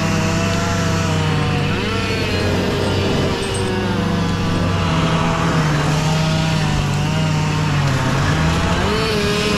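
An engine running steadily, its pitch dipping and rising a few times as the revs change.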